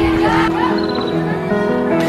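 Background music with long held notes that shift in pitch now and then.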